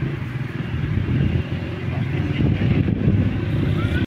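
Loud, steady outdoor rumble of wind buffeting the microphone beside a highway, mixed with the noise of passing cars. It cuts off suddenly at the end.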